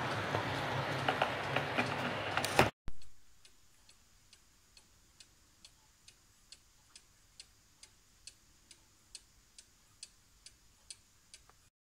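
00 gauge model train coaches rolling along the track with a run of sharp clicks, cutting off suddenly about three seconds in. After that a cuckoo clock ticks faintly and evenly, a little over two ticks a second, until just before the end.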